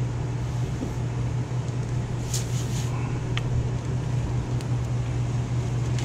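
Steady low mechanical hum, with a few short hisses a little over two seconds in.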